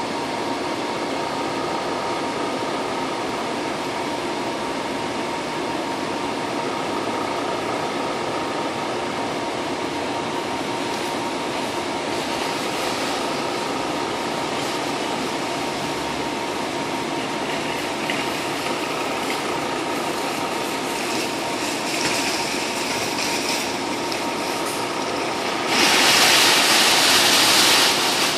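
Steady background hum of the outdoor surroundings at a storefront, with a faint constant tone. Near the end a louder rushing, hissing noise lasts about two seconds.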